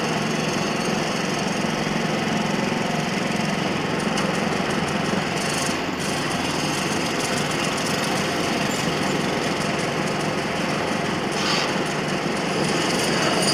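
Factory machinery running in a steady, dense mechanical din with a fast clatter, and two short hisses partway through and near the end.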